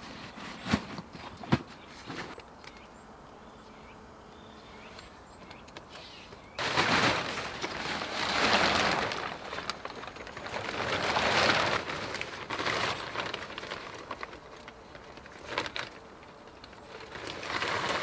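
A tarp's fabric rustling loudly as it is unpacked and handled, in stretches a few seconds long, after a handful of light clicks and knocks.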